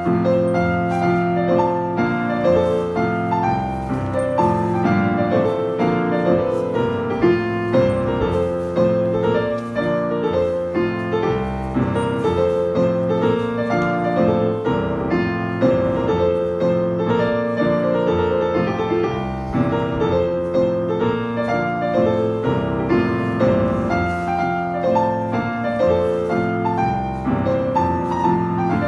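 Scottish country dance music with prominent piano, playing continuously with a steady, regular beat.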